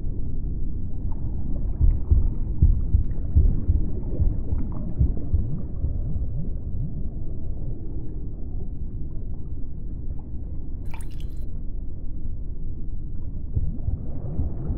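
Low, watery rumble with gurgling, bubbling blips that rise in pitch, denser in the first half: an underwater-style ambient sound bed. A brief crackle about three-quarters of the way through.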